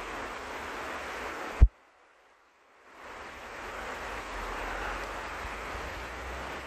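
Steady rushing noise of a shallow stream flowing over riffles. About one and a half seconds in, a sharp low thump cuts the sound off completely for over a second before the rushing fades back in.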